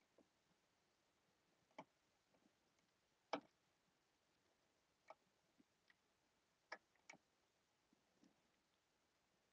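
Near silence with about five faint, scattered clicks as HO scale Micro-Engineering turnouts are pressed together by hand, their rail joiners sliding onto the rails; the loudest click comes about three and a half seconds in.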